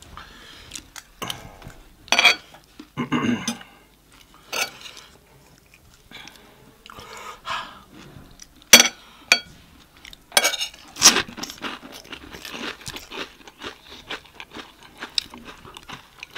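Close-miked chewing and crunching of chatpate, a spicy puffed-rice snack, in irregular mouthfuls, with a few sharp clicks of spoons against dishes.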